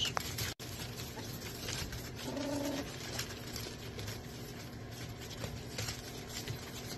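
American pit bull terrier puppies in a crate: one short whimpering call about two seconds in, over a steady low background.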